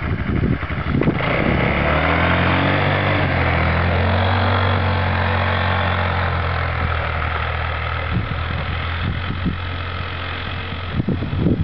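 Small youth quad bike engine running as it rides through snow, its pitch climbing about a second in and then holding steady. A few low thumps come near the end.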